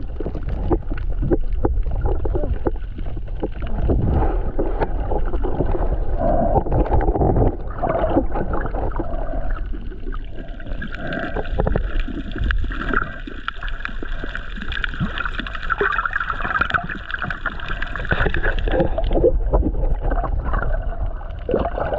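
Underwater sound picked up by a submerged action camera: a muffled low rumble of moving water with gurgling and crackling clicks. From about eleven seconds to nineteen seconds a steadier, higher drone joins in.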